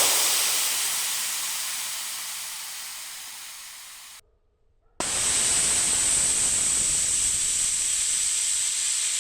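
Gas hissing out of a bullet-punctured copper coil in a heat pump condenser. A loud hiss fades over about four seconds and breaks off, then a second steady hiss with a high whistling edge starts about five seconds in.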